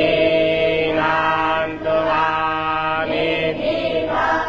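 A group of young Vedic students chanting Sanskrit mantras in unison, holding long steady notes with a few shifts in pitch.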